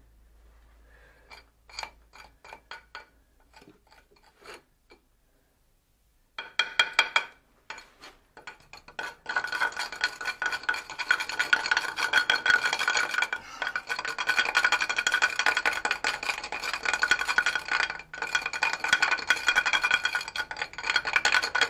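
Rapid, continuous scraping on metal with a ringing metallic tone. It starts about six seconds in, after a few scattered light clicks and taps, and runs loud with a brief break near the end.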